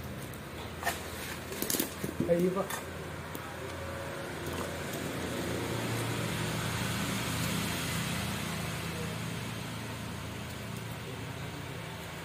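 A few sharp knocks in the first three seconds, then a motor vehicle passing: a low engine hum and hiss that swell to a peak around the middle and slowly fade.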